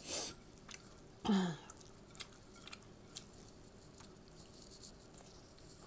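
A person chewing food with soft mouth clicks and smacks while eating by hand. There is a short breathy burst at the start and a brief hum of the voice, falling in pitch, about a second in.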